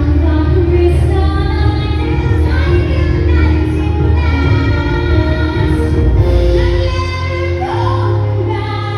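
A song playing: a sung vocal over steady bass and accompaniment.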